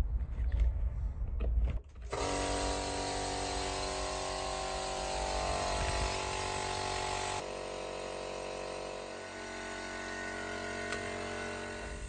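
Small portable electric air compressor running steadily, its motor starting suddenly about two seconds in and dropping a little in level partway through; a few low knocks come before it.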